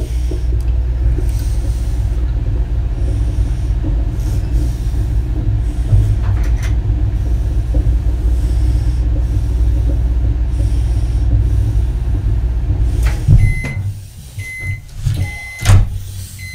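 Microwave oven running with a steady hum that stops about fourteen seconds in, followed by three short beeps about a second apart, signalling the end of the heating cycle.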